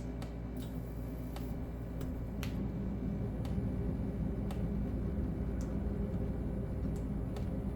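Halsey ceiling fan running: a steady motor hum with sharp ticks about once a second, getting slightly louder about two seconds in.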